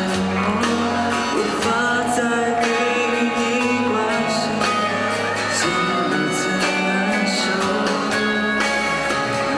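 A man singing live into a handheld microphone, with instrumental accompaniment.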